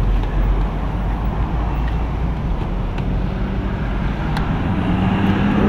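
Steady rumble of road traffic, with an engine note growing louder near the end and a few small clicks.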